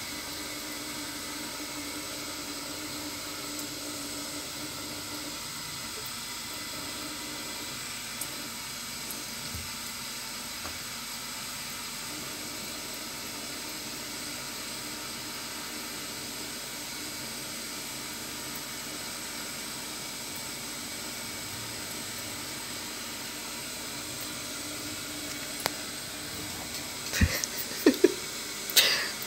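Thin stream of water running from a kitchen tap into a stainless steel sink, a steady hiss. Near the end, a few short, loud knocks.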